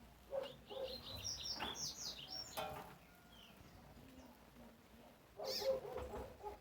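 Double-collared seedeater (coleiro) singing: a quick run of short, high whistled notes about a second in, and another brief burst near the end.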